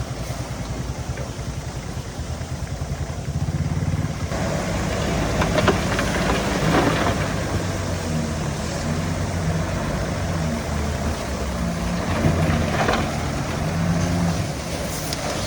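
Bulldozer's diesel engine running, pulsing low at first, then working harder about four seconds in, with a few short metallic clanks.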